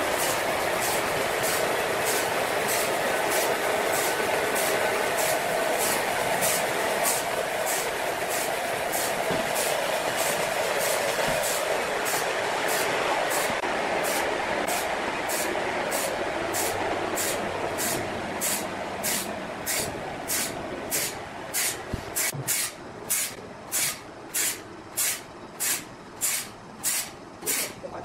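Large horizontal band saw cutting through a giant log, a steady cutting noise with a regular high hissing pulse. In the second half the cutting noise fades as the cut finishes, leaving loud hissing surges a little over one a second.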